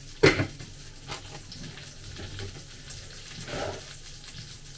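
A metal pot lid clanks down onto a saucepan once, shortly after the start, followed by a softer knock and faint rustling.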